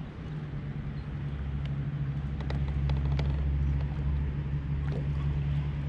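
A low, steady motor hum that swells over the first few seconds and then holds, with a few faint ticks in the middle.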